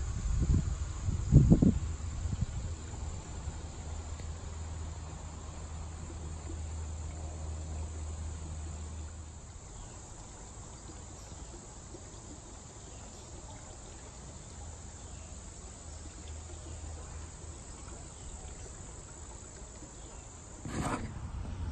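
Steady, high-pitched chorus of insects singing without a break. A few low thumps in the first two seconds, and a brief sharp noise near the end.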